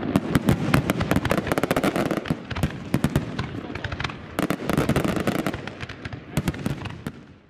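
Aerial firework shells bursting one after another, with dense rapid crackling from crackling stars, fading out near the end.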